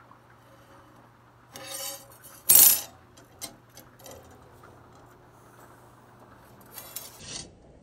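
Steel clutch plates from a BMW 7-speed dual-clutch gearbox being handled, clinking and scraping against each other and the bench in a few short clatters, the loudest about two and a half seconds in and another small cluster near the end. A faint steady low hum runs underneath.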